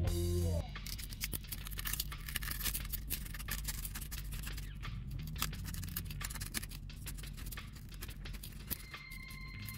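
Scraper blade and fingertips scratching over the glass residue and adhesive left on an iPhone 13 Pro's back frame: many small, irregular scratches and clicks over a low steady hum. Guitar music cuts off in the first half second, and a faint steady high tone comes in near the end.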